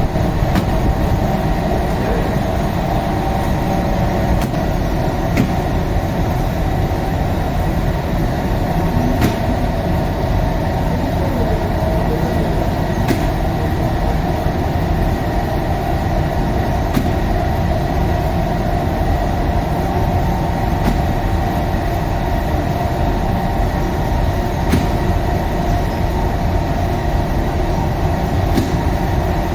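Steady machinery noise: a low rumble with a constant hum, broken by a few faint clicks.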